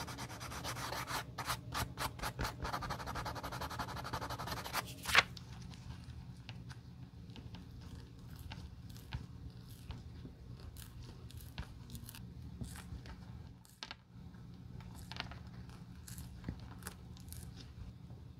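Small piece of sandpaper rubbed in quick strokes over a cream leather slipper upper, ending in a sharp click about five seconds in. After that, fainter scattered scrapes and ticks as a thin metal blade picks at the edge of the rubber sole.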